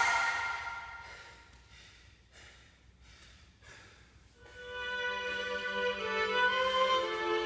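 Background music: a beat-driven track fades out over the first second or so. After a brief lull, a slow piece of long held violin-like notes begins about four and a half seconds in.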